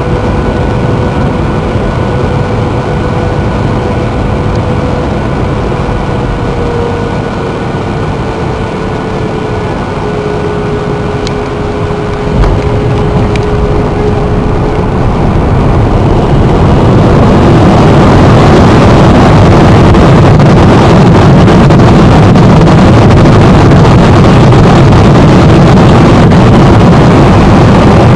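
Jet airliner heard from inside the cabin: a steady engine hum with a thin whine on final approach, a short thud about twelve seconds in as the wheels touch down, then from about sixteen seconds a much louder, steady roar of reverse thrust and braking on the landing roll.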